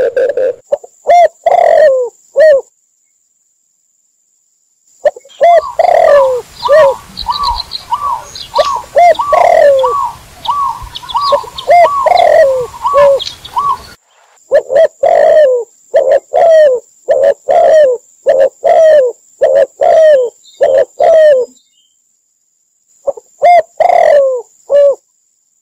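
Doves cooing in runs of short repeated notes, each note falling in pitch, from a mixed call track of spotted, red collared and zebra doves. The calls come in spliced sections with short silent gaps between them, and the middle section has a noisier background with some higher small-bird chirps.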